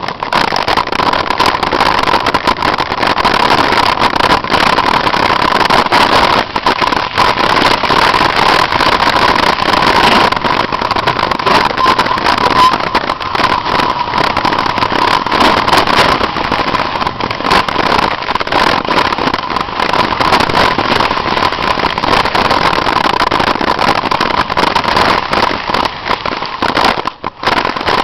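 Mountain bike rolling fast downhill over a rough trail and boardwalk: loud, continuous wind buffeting on the camera's microphone, mixed with the rattle and knocks of the bike over bumps. A steady hum runs underneath, and the noise dips briefly near the end.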